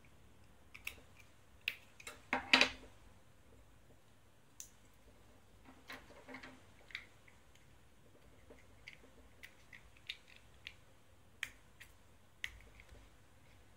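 Small plastic mold parts and clips being handled and fitted together by hand: scattered light clicks and taps, with a louder cluster of clicks about two and a half seconds in.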